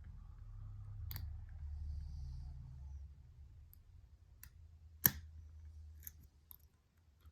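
Small sharp metallic clicks of a lock pick working the pins of an Abus 83/45 padlock: a handful of scattered clicks, the loudest about five seconds in, over a low rumble.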